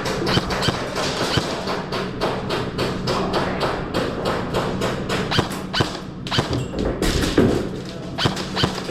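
Airsoft guns firing in quick single shots, a run of sharp cracks several a second that thins briefly about six seconds in.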